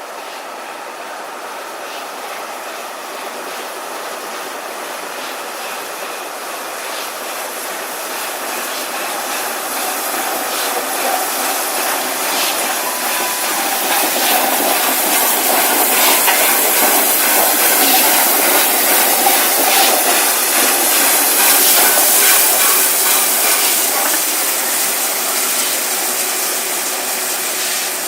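A train passing on the rails, with wheels clicking over the track. It grows louder, is loudest a little past halfway, and then fades.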